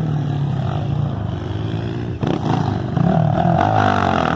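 Motocross motorcycle engines running and revving on the track, the pitch rising and falling, with a sharp knock about two seconds in and louder revving from about three seconds.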